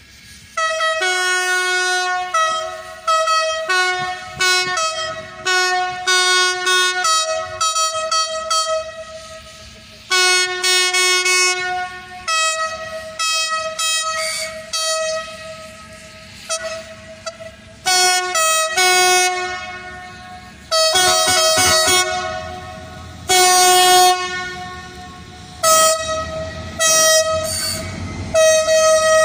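SNCF CC72000 diesel locomotive's horn sounded over and over in about a dozen loud blasts, switching between a low and a high note. A low engine rumble builds in the last few seconds as the locomotive draws close.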